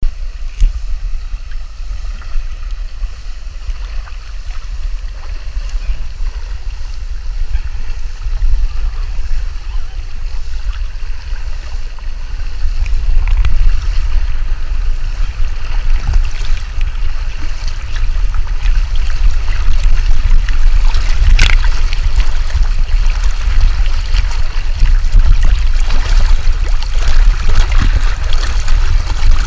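Spring water welling up through a pool and rushing past a camera held at the water's surface: a steady rush and splashing with a heavy low rumble, growing louder about halfway through.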